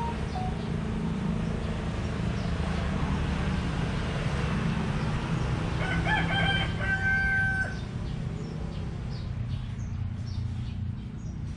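A rooster crowing once, about six seconds in, ending on a long held note, over a steady low rumble.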